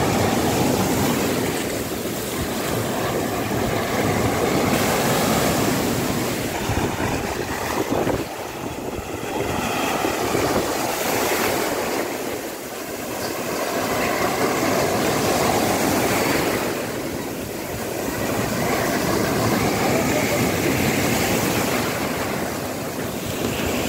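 Small waves breaking and washing over the sand in the shallows. The surf swells and eases about every four to five seconds.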